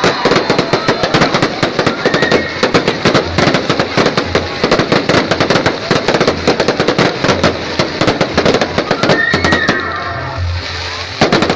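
Fireworks going off in a dense, rapid barrage of bangs and crackles, many a second, easing off about ten seconds in before a last short burst.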